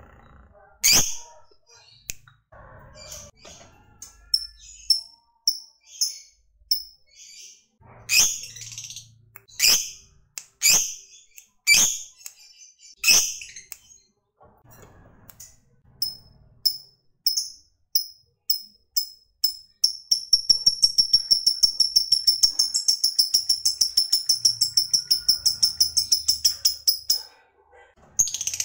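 Lovebird calling: a string of separate sharp, high chirps, then a long, rapid chattering trill of about seven seconds, the 'ngekek' song that lovebird keepers prize, which stops abruptly just before the end.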